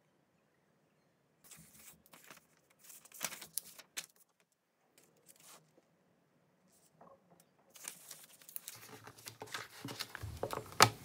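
Soft crinkling and rustling with light taps and clicks, as of hands handling and tearing kitchen packaging. Sparse for the first few seconds, then busier over the last three.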